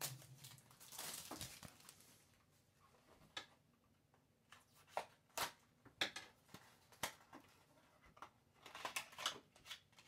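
Faint handling of a diecast model car's packaging: a short rustle about a second in, then scattered sharp clicks and snaps of plastic, with a quick cluster of them near the end.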